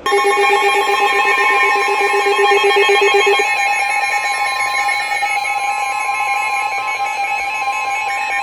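NOAA weather radios sounding their alert for a tornado warning: several steady and beeping alarm tones at different pitches overlap. The lowest beeping tone stops about three and a half seconds in, while the higher tones carry on.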